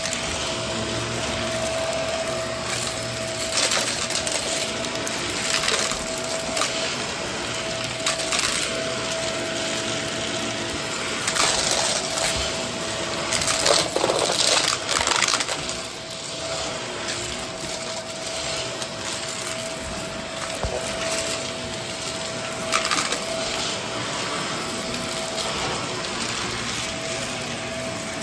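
Vacuum cleaner running with a steady motor hum, with scattered crackles and rattles throughout.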